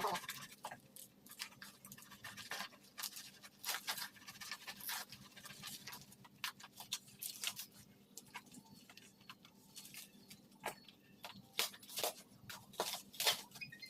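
Packaging being handled and opened during an unboxing: irregular crinkles, rustles and sharp clicks.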